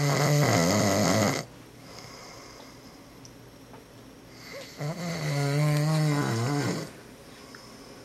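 A man snoring in his sleep: a long snore that ends about a second and a half in, then a second snore of about two seconds starting near the middle, each with a wavering pitch and a quiet pause between.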